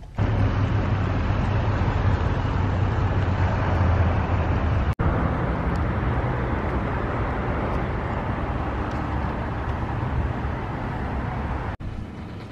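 Steady road traffic noise, an even rumble without a clear engine note. It breaks off abruptly twice, about five seconds in and just before the end, where it drops to a quieter hum.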